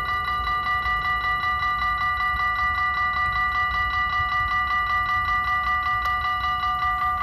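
Dutch railway level-crossing warning bells ringing in a fast, even ding-ding, about five strikes a second, sounding while the barriers are down for an approaching train.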